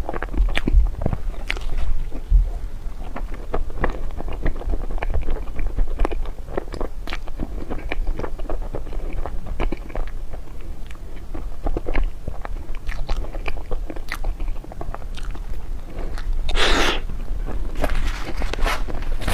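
Close-miked eating of desserts: steady chewing and biting with many small crunches and moist clicks. One louder, noisier crunch or rustle comes near the end.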